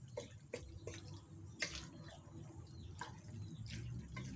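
A spatula stirring squid adobo in a metal wok, with scattered, irregular light clicks and taps against the pan.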